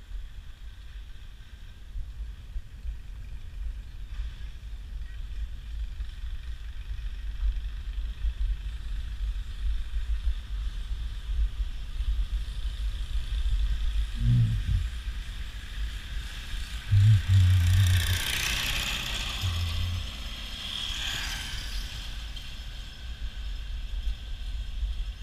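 Steady low rumble of wind and road noise during a bicycle ride, with a motor vehicle passing close about two-thirds of the way through, its sound swelling and then fading away.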